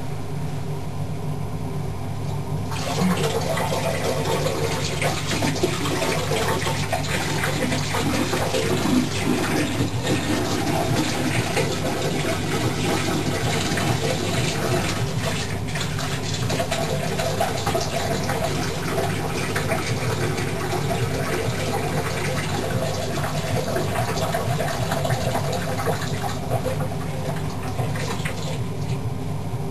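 A man urinating into a toilet bowl: a steady splashing stream of liquid into water that starts about three seconds in and stops shortly before the end, over a low steady hum.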